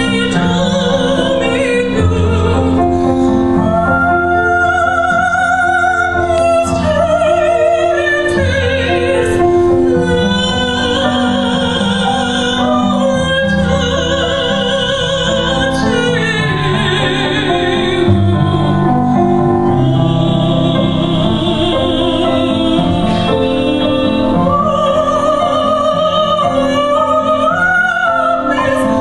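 A woman singing solo in a classical, operatic style, holding long notes with wide vibrato, over an instrumental accompaniment with strings.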